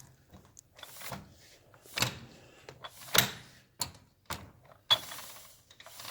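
A string of sharp, irregular metal knocks and clicks, about five, from tools and parts being handled during work on a motorcycle clutch.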